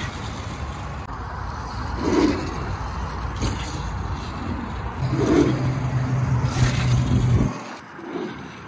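Sur Ron electric dirt bike being ridden, its drivetrain noise mixed with heavy wind rumble on the microphone. A steady low hum comes in over the last couple of seconds, then the sound cuts off suddenly near the end.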